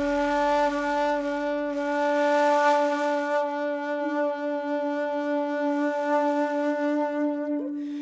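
A wind instrument holding one long, steady note with a breathy edge, the pitch shifting slightly about halfway through and breaking off near the end.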